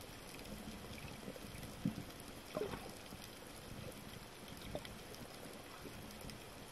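Underwater ambience heard through a submerged camera: a steady low hiss with a few brief gurgles, the loudest about two seconds in.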